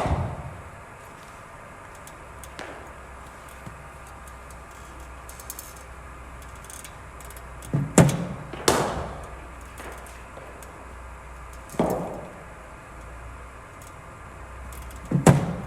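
A cricket bowling machine firing a ball with a dull thump, followed well under a second later by the sharp crack of the ball striking the bat, about halfway through. A single knock follows a few seconds later, and the machine thumps again near the end.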